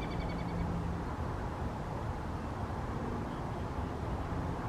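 Steady low outdoor rumble, with a short high chirping trill in the first half second.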